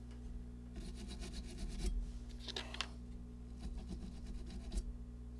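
Quick scratchy rubbing strokes of a small brush scrubbing a circuit board, in two bouts, over a steady low hum.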